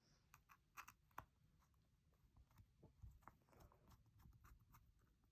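Near silence, with faint scattered light clicks and ticks of small screws being driven back into a metal wallet.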